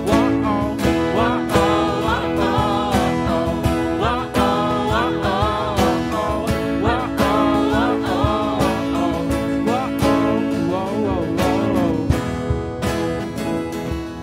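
Live band playing a worship song: acoustic guitar strumming under held keyboard chords, with voices singing the melody.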